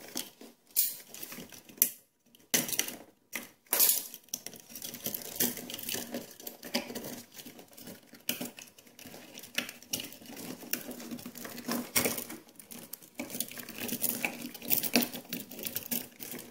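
Electrical cable being pulled and worked into a wall outlet box by hand and tool: irregular sharp clicks, taps and scraping rustles of wire and metal.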